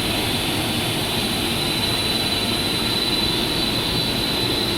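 Cable jacket extrusion line running in the factory: a steady, loud machine noise with a thin, high, constant whine through it.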